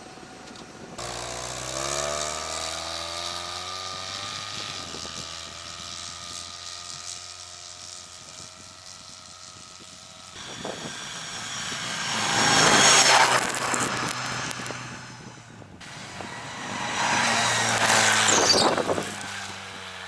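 Petrol engine of a «Ветер» all-terrain vehicle driving through deep snow: the engine note rises as it pulls away, then holds steady. Twice, later on, the sound swells loud and then fades, as the vehicle passes close by.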